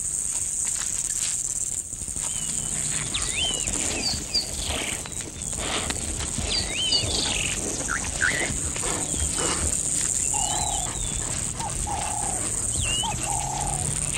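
Savanna ambience: birds chirping and whistling over a steady high insect drone, with a short low call repeated several times in the second half. Scattered crunches and clicks come from cheetahs chewing and tearing at a gazelle carcass.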